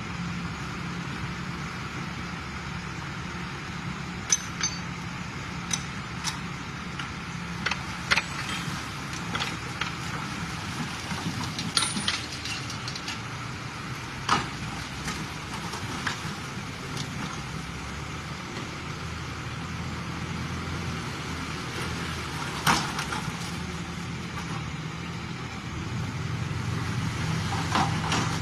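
Engine of heavy construction machinery running steadily, with scattered sharp metallic clinks and knocks. The engine grows louder near the end.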